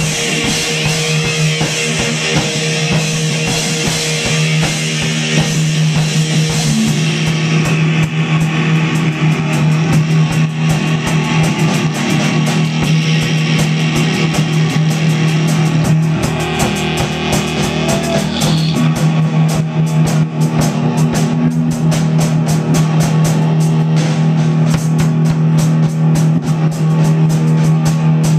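Loud live noise rock: a distorted electric guitar holds a steady low droning note in a dense wash of noise. From about eight seconds in, a drum kit joins with fast, tightly packed hits and cymbals.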